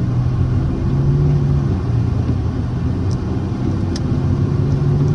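Lexus GS300's inline-six engine running under road and cabin rumble from inside the car. Its pitch rises, falls back and rises again as the car gets under way. It runs smoothly, its misfire cured by a new coil pack.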